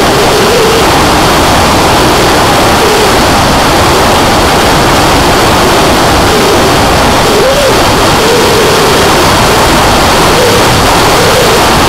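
Loud, steady wind rush on the onboard camera microphone of a Skyfun RC plane in flight, over a droning electric motor and propeller whose pitch rises and falls with the throttle.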